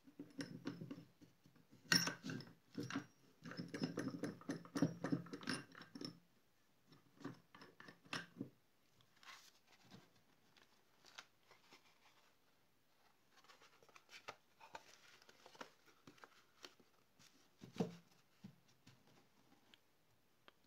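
Hand-handling of a wooden bookbinding press: a run of knocks and rattles from the wooden jaws and the metal nuts and rods for about the first six seconds, then quieter paper rustling and tapping as a paper stack and card cover are handled, with one sharper knock near the end.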